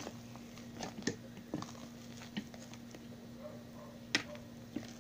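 A metal spoon folding greens into beaten egg in a bowl: a few scattered soft clicks and scrapes of the spoon against the bowl.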